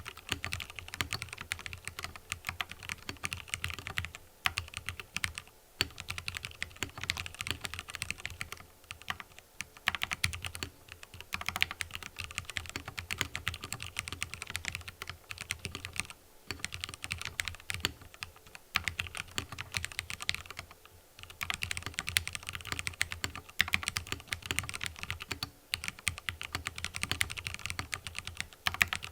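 Typing on a mechanical keyboard with fully lubed Cherry MX Red linear switches: a fast, continuous run of key presses, broken by a few short pauses.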